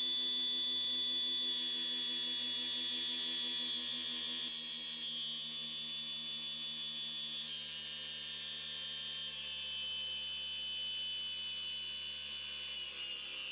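Harbor Freight Hercules cordless angle grinder running flat out on a dyno under a steadily rising load. Its high motor whine steps down in pitch a couple of times as the speed falls from about 5,100 to 4,400 RPM near its peak power.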